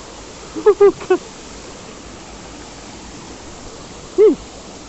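Steady rushing of a jungle river and waterfall. A few short vocal yelps come about a second in, and one more near the end.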